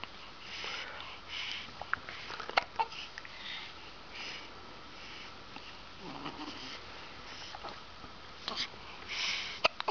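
Newborn baby's snuffly nasal breathing: repeated short sniffs and sniffles with small clicks, the build-up of a sneeze that does not come. A soft grunt about six seconds in and a louder snuffle near the end.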